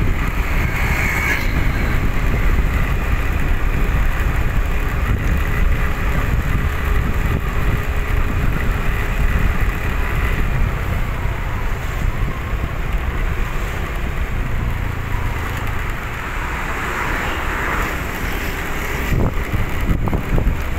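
Wind buffeting the microphone of a moving rider, over steady road noise. Near the end an oncoming vehicle passes, followed by a short knock.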